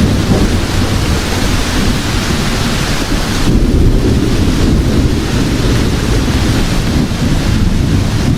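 Steady rain with a continuous low, rolling rumble of thunder.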